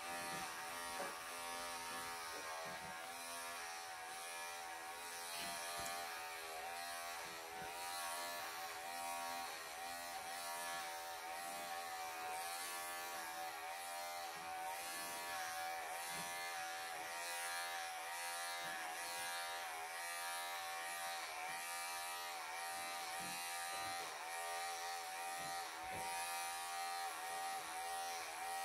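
Wahl electric pet clippers running steadily through a Persian cat's long coat, a buzzing hum whose pitch dips slightly now and then as the blade meets the fur.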